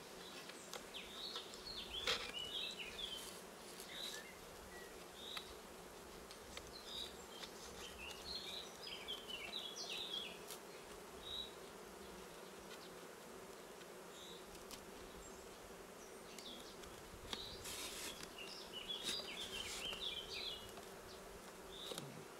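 Honeybees humming steadily from an opened top bar hive, with a few soft knocks and scrapes as a wooden divider board is pushed down between the top bars.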